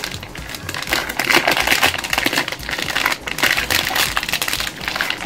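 Packaging rustling and crinkling, with rapid, irregular clicking and rattling, as a stuck computer-screw assortment kit is worked loose from its box.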